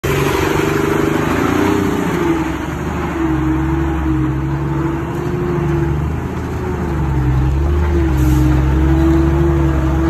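Komatsu D20A bulldozer's diesel engine running steadily, its pitch wavering slightly with load, with a rough mechanical clatter over it.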